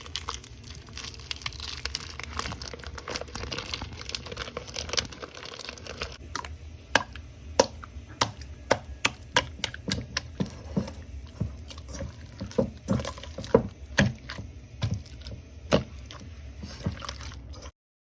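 Close-up eating sounds: irregular wet clicks and smacks of someone chewing food, sparse at first and then coming several a second. The sound cuts off suddenly near the end.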